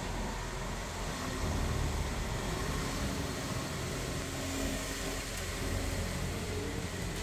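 Steady low rumble of a motor vehicle engine over steady background noise.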